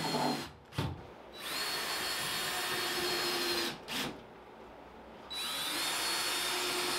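Cordless drill driving screws into sheetrock overhead, in spells of about two seconds with a steady whine, spinning up at the start of each. Short knocks fall in the pauses between them.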